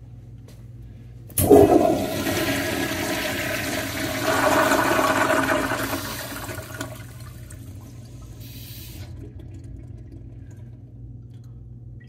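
American Standard toilet with a top-spud flush valve flushing: a sudden loud rush of water about a second and a half in, swelling again around four seconds as the bowl empties. It drops off near seven seconds to a quieter trickle of water refilling the bowl.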